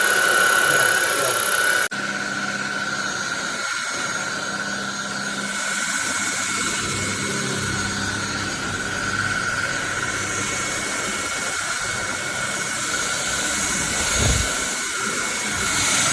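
Cordless stick vacuum cleaner running, a steady high motor whine over rushing air. The sound drops out for an instant about two seconds in, then runs on a little quieter.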